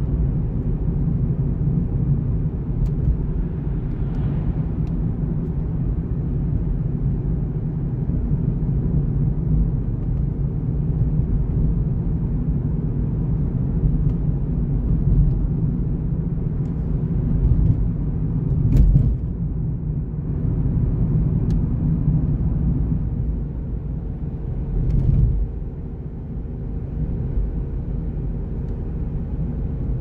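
A car driving along a town road, heard from inside the car: a steady low rumble of engine and tyre noise. A couple of short, louder low thumps come about two-thirds of the way through and again shortly after.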